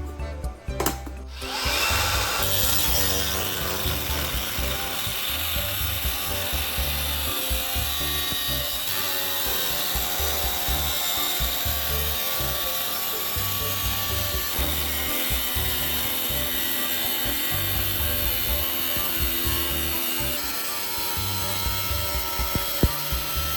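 A power tool working steadily on metal, a continuous abrasive hiss that starts about a second and a half in, over background music.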